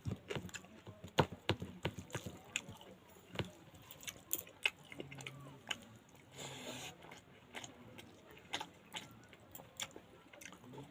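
Close-up chewing and mouth smacking of someone eating pangas fish curry: many short, sharp wet clicks at an uneven pace, with a brief hiss just past the middle.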